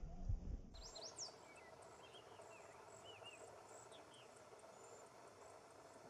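Faint wild songbird calls, a few thin high whistles and short chirps, over a faint, steady ticking of insects.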